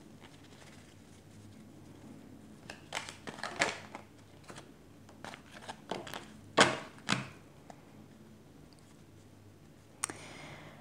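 Oracle cards being picked up from a spread on a cloth and handled into a stack: a scattering of soft card slaps and clicks in the middle stretch, then a short sharp tap near the end as the deck is squared.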